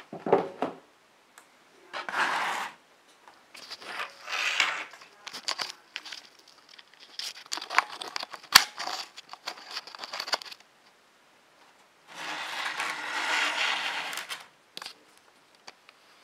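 Cardboard and plastic packaging being handled and opened by hand. Short bursts of scraping and sliding come with scattered clicks and a sharp tap about eight and a half seconds in. A longer scrape of about two and a half seconds comes near the end.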